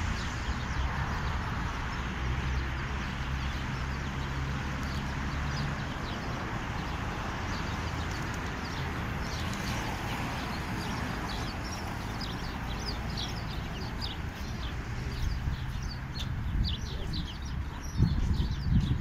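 Outdoor ambience of steady noise and low hum, with birds chirping in quick short notes from about halfway on, growing busier towards the end. A few louder low thumps come near the end.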